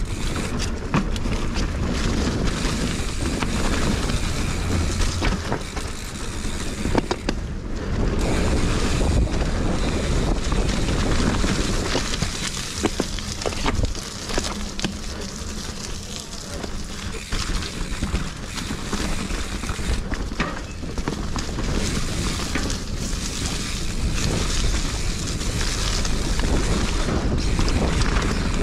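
Wind buffeting an action camera's microphone during a fast mountain-bike descent, with the bike clattering and knocking over rough trail throughout.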